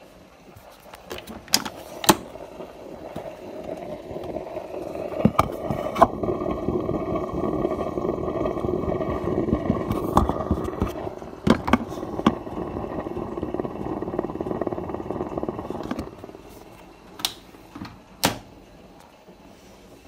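Hotpoint front-loading washing machine in its wash cycle, the drum turning and churning a very sudsy load with a steady whir. It builds up about four seconds in and stops around sixteen seconds, with scattered sharp knocks throughout.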